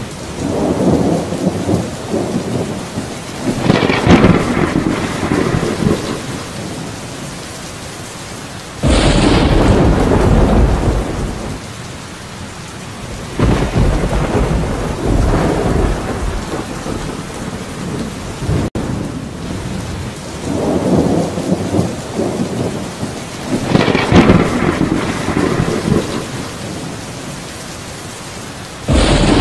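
Steady rain with thunder rolling in again and again. Loud claps start suddenly about nine seconds in and again near the end, with swelling, fading rumbles between them.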